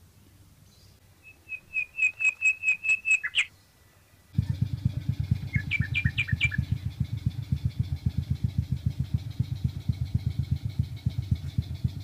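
A bird sings a quick run of about ten high chirps. About four seconds in, a small engine starts suddenly and keeps running with a rapid low putter, while a bird gives a few more chirps over it.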